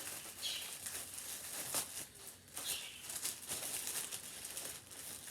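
Plastic poly bag and clothing rustling and crinkling in irregular bursts as a bagged garment is handled and unwrapped.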